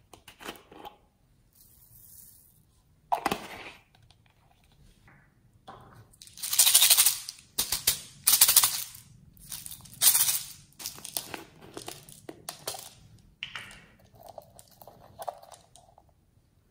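Clear hard-plastic capsule packed with foam beads being handled by hand: irregular bursts of crackling, crinkling plastic with the beads shifting inside, loudest in the middle stretch.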